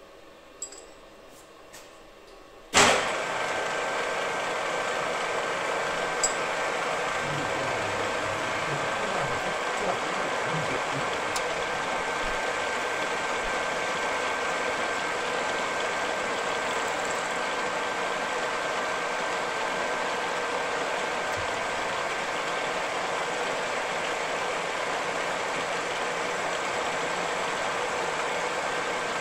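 A few light clicks, then a bench milling machine starts about three seconds in and runs steadily, face-milling the bottom of an aluminium linear bearing block held in the vise.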